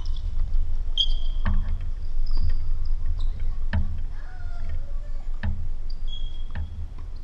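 Tennis ball struck back and forth in a rally: sharp racket-on-ball knocks about every one and a half to two seconds, over a steady low rumble.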